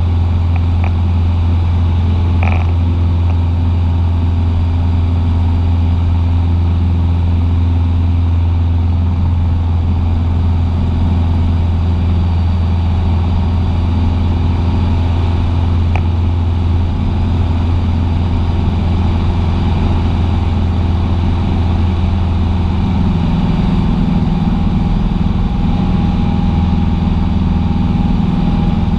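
Cessna 150's four-cylinder Continental O-200 engine and propeller droning steadily in flight. The tone shifts slightly about three-quarters of the way through.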